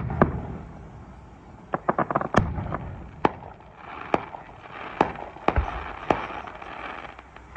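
Aerial fireworks bursting: a string of sharp bangs about every half second to a second, some in quick clusters, with crackling from about four seconds in.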